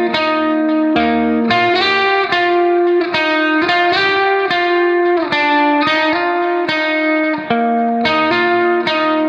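Background instrumental music: a melody of distinct, ringing notes in a repeating phrase.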